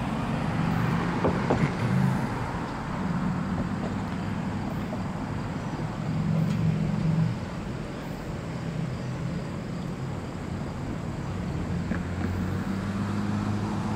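The freight cars of an empty Norfolk Southern garbage train roll along the track, making a steady rumble of wheels on rail with a low hum. The sound eases a little in the middle and swells again near the end.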